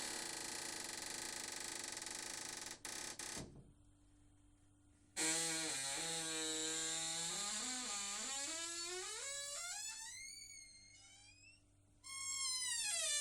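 Door hinge creaking: a rough grating creak with a couple of clicks, then after a short pause a long squeal that climbs in pitch before fading, and near the end a second squeal that slides down in pitch.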